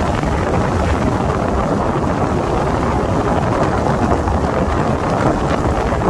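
Steady low rumble of wind buffeting the microphone over the road noise of a vehicle driving on a wet road.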